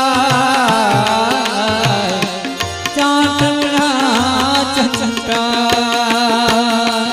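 Devotional aarti bhajan music: harmonium holding steady notes and tabla playing a steady rhythm of deep bass strokes and crisp strikes, under a singer's wavering, ornamented held note between sung lines.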